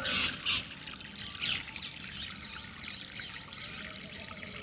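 Water trickling and pouring steadily, with a few brief louder splashy moments in the first second and a half.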